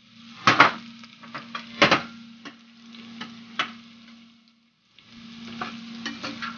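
Sliced onion and bell peppers sizzling in hot oil in a stainless steel frying pan while being stirred, the utensil knocking against the pan several times, loudest about half a second and two seconds in. A steady low hum runs underneath, and the sound drops out briefly about four and a half seconds in.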